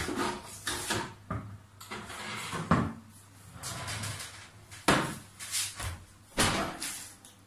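Metal baking trays scraping and knocking against the rack of a kitchen wall oven, with the oven door being handled: a series of separate clatters and knocks, the sharpest about a third of the way in, two-thirds in and near the end.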